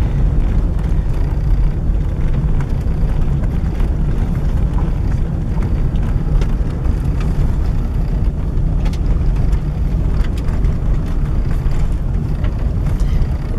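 Steady low rumble of a car's engine and tyres heard from inside the cabin while driving slowly on a gravel road, with a few faint ticks.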